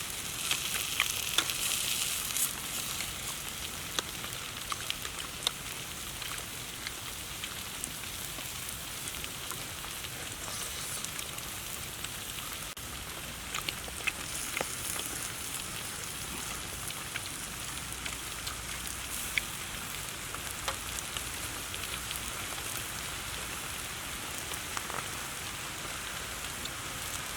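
Food frying, a steady sizzling hiss with scattered pops and crackles.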